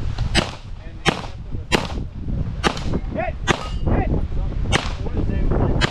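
Pistol shots in a string of about seven sharp cracks, roughly a second apart, over a steady low rumble of wind on the microphone.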